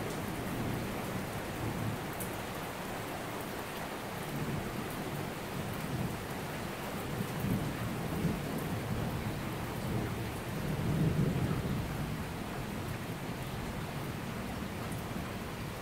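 Heavy rain falling steadily on a paved street, with low rolling thunder rumbling in and out, loudest about eleven seconds in.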